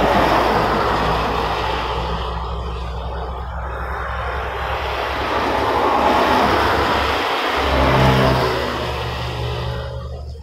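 Vehicles passing on a wet road, their tyres hissing through the water over a low engine hum. One pass dies down over the first few seconds; a second swells to its loudest about eight seconds in, its engine note plain at the peak, then fades away near the end.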